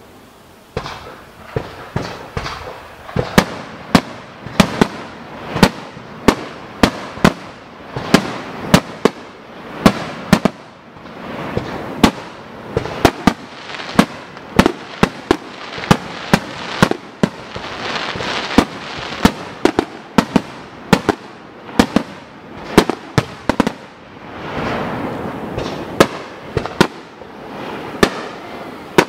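Rapid barrage of aerial firework shells bursting, about two sharp bangs a second, with crackling and hiss between them. It starts about a second in.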